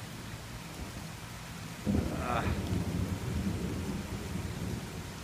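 A thunderclap cracks suddenly about two seconds in and rolls on as rumbling thunder for a couple of seconds, fading toward the end, over steady rain.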